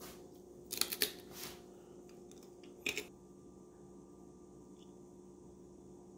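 Seaweed crackers and their clear plastic clamshell tray being handled: a short run of sharp crackling clicks about a second in and another brief one near three seconds. A steady low hum runs underneath.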